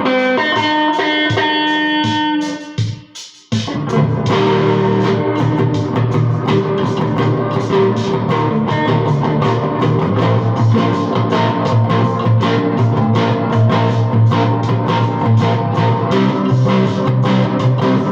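Overdriven electric guitar playing in F major: held notes, a brief break about three seconds in, then a long run of fast, continuous picked notes over low bass notes.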